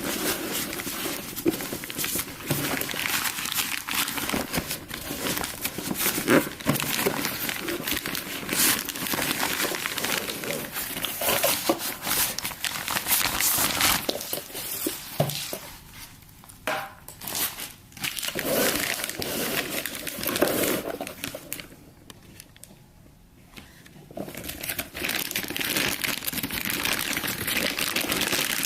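Packaging being handled and unwrapped, crinkling and crackling continuously with many sharp crackles, easing into a lull of about two seconds roughly three-quarters of the way through before resuming.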